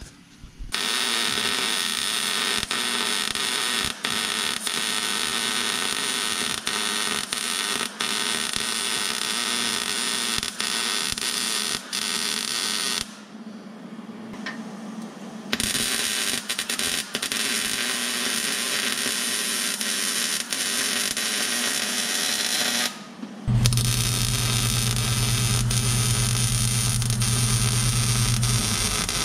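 Electric welding arc crackling and buzzing as a steel bracket is welded to a car's frame rail. It comes in three runs with short breaks, and the last run carries a low hum.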